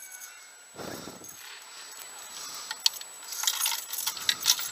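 A person breathing hard, with one heavy breath about a second in. In the last two seconds come light metallic clinks and jangles, like keys.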